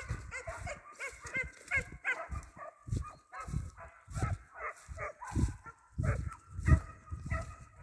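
Hare hounds giving tongue on a hare's trail: many short, high baying yelps in quick succession from more than one dog. Low buffeting on the microphone underneath.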